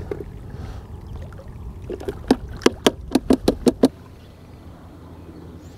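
A quick run of about eight sharp plastic knocks over under two seconds: the whitebait catch container being tapped against the plastic chilly bin to shake the fish out. Wind rumbles on the microphone until the knocks end, after which only faint, steady background noise remains.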